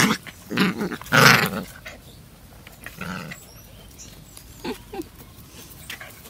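Two puppies play-fighting, with short loud bursts of growling and yelping in the first second and a half and a weaker one about three seconds in, then only faint scuffling.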